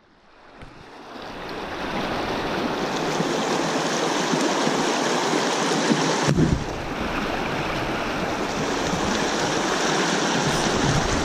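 Shallow creek water rushing and splashing over rocks, fading in over the first two seconds and then steady, with a brief knock about six seconds in.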